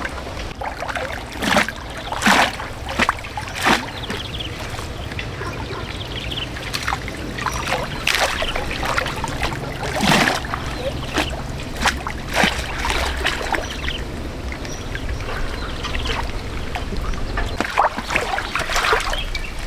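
Water splashing and trickling in irregular bursts, with several sharper splashes in the first few seconds and around the middle.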